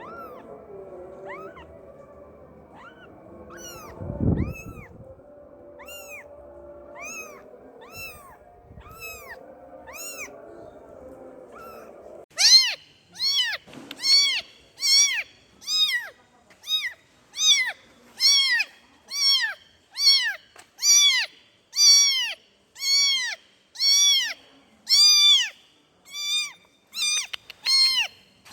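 Kitten meowing over and over to call its mother: short, high calls that rise and fall in pitch. They are faint at first over a low hum, with a dull thump about four seconds in. Then, about twelve seconds in, they turn much louder and steady at about one a second.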